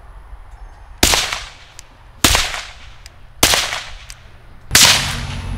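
Four suppressed pistol shots about a second apart, from a Ruger-57 firing Federal supersonic 5.7x28mm through a SilencerCo Sparrow .22 rimfire suppressor. Each has a deep tone with a loud, sharp crack that dies away quickly.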